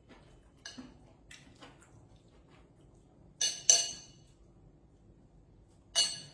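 Kitchenware clinking, as a utensil strikes cookware: a few light taps, then three sharp ringing clinks, two in quick succession about three and a half seconds in and one near the end.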